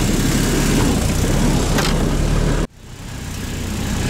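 Off-road vehicle engine running steadily while driving over snow, with wind on the microphone. About two-thirds of the way through, the sound cuts out abruptly and fades back in.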